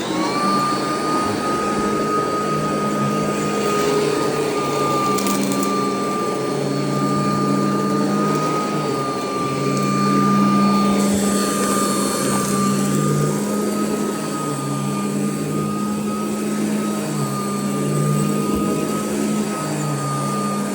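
Royal vacuum cleaner switched on: the motor's whine climbs quickly to a steady high pitch, then it runs steadily over carpet.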